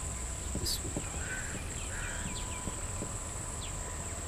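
Insects chirring in a steady, high continuous tone, with a few short, faint chirps about a second in.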